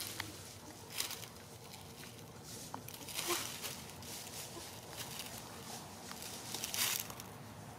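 Hen pecking at a slice of salami held in a hand and stepping about on dry leaves: a few short rustles, about a second in, around three seconds, and near seven seconds.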